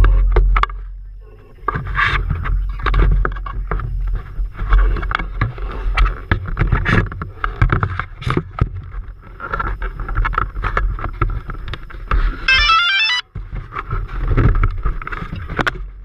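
Wind buffeting the microphone of a DJI Phantom 1 quadcopter's camera in flight, gusting and rumbling unevenly over the drone's motor noise, with a brief run of stepped electronic beeps about twelve and a half seconds in.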